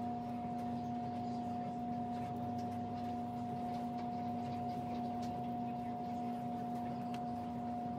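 A steady hum of two constant tones, one low and one mid-pitched, with a few faint light taps over it, such as a foam brush dabbed on a paper towel.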